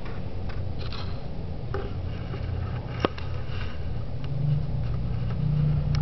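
A steady low rumble that grows a little louder about four seconds in, with faint ticks and one sharp click about three seconds in.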